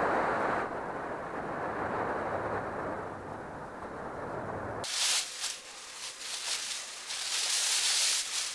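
Steady wind and surf rushing for about five seconds, then an abrupt cut to irregular rustling and light clattering as gear is handled at an open vehicle tailgate.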